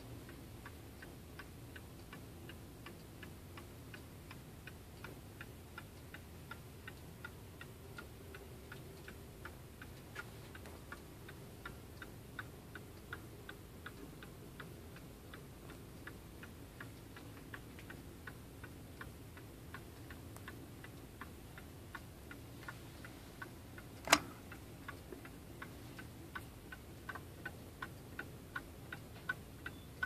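Seth Thomas tambour mantel clock with an 89AL movement ticking steadily and faintly at an even beat, with one sharp knock about 24 seconds in.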